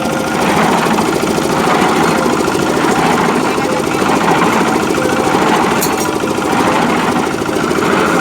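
Small hand-cranked diesel engine of a cement mixer running steadily with a fast, even chugging, now going after refusing to start.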